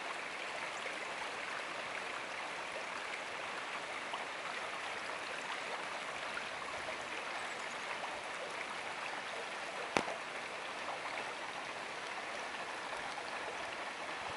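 Steady rushing of a small stream flowing over rocks, with a single sharp click about ten seconds in.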